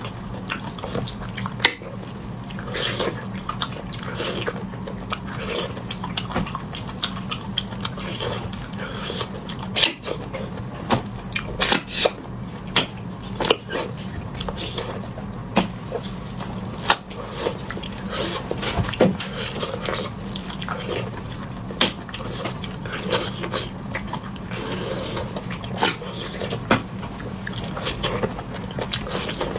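A person sucking and slurping bone marrow: irregular wet smacks, sucks and sharp clicks, several a second at times, over a steady low hum.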